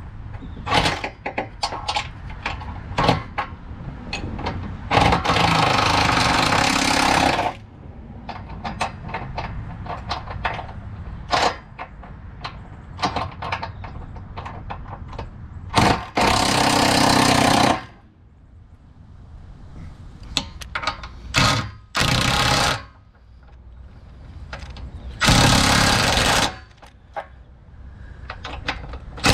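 Impact wrench running nuts onto a trailer hitch's mounting bolts in four bursts of one to two and a half seconds each, with short metallic clicks and knocks between the bursts.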